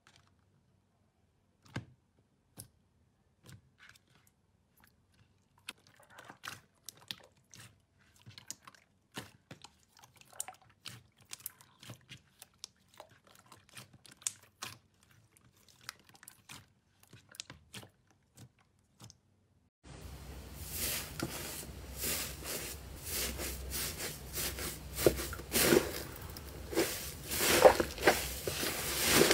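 Hands squishing and pressing clear red slime, making sparse soft sticky clicks and pops. About two-thirds in, the sound jumps to louder, continuous crackling and squelching as thick yellow slime is kneaded and pulled apart.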